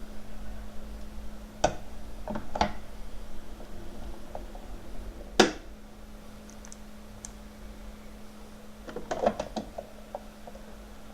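USB mini fridge running with a steady low hum, while something is handled with a few sharp knocks and clicks, the loudest about five seconds in and a rattle of small clicks near the end.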